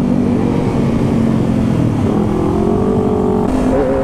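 Kawasaki Ninja ZX25R's 250 cc inline-four engine running under way. The engine note holds steady, dips briefly about two seconds in, then rises in pitch as it revs up.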